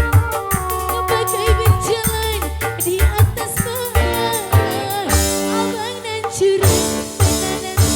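Live organ tunggal music, an electronic keyboard with a drum beat, playing steadily with a sung or played melody line over it.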